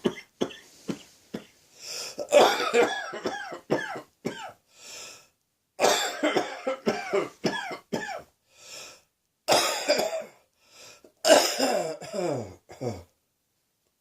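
A person coughing in four fits of several coughs each, from a heavy cold with a sore throat. The coughing stops about a second before the end.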